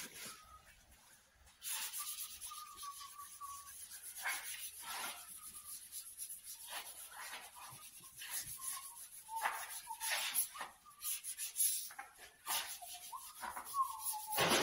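Fine-grit sanding sponge rubbed over a primed bicycle frame in short, irregular strokes, lightly smoothing the dried primer before painting. A thin wavering whine comes and goes under the strokes.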